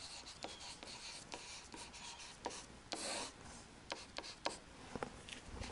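Faint scratching and tapping of a stylus writing by hand on a tablet: a run of short strokes and small ticks, a few a second.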